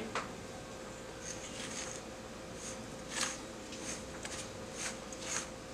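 Hands mashing a stick of butter into ground María cookie crumbs in a pie pan. From about a second in there are faint, short gritty rustles and squishes, roughly two a second.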